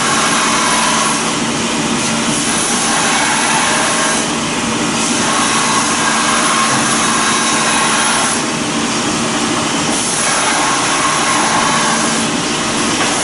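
Steady, loud rushing noise of a running fan or blower, with a constant low hum under it.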